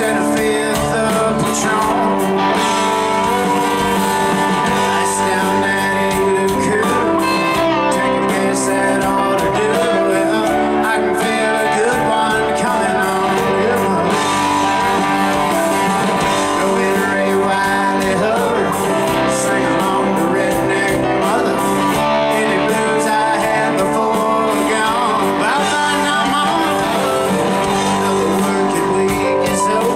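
Southern rock band playing live through a PA: electric guitars over drums and stage piano, with a lead vocal.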